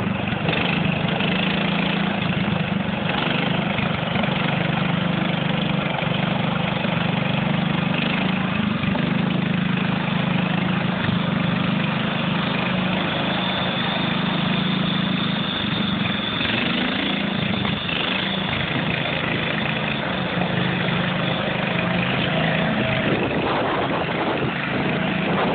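John Deere garden tractor's small engine running steadily under load as it pulls a weighted sled, a constant drone that holds the same pitch throughout.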